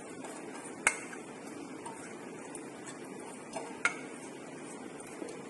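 A steel bowl clinking against a steel mixer-grinder jar as soaked rice is tipped and scraped into it: two sharp clinks, about a second in and just before four seconds, over faint steady background hiss.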